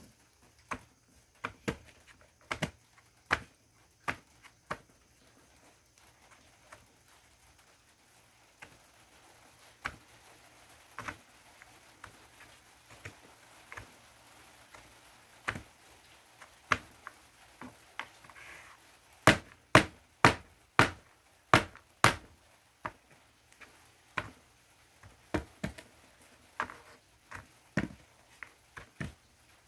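Heart-shaped naphthalene mothballs crushed under a gloved hand: irregular sharp crunches and cracks, loudest in a quick run of about five cracks some two-thirds of the way through.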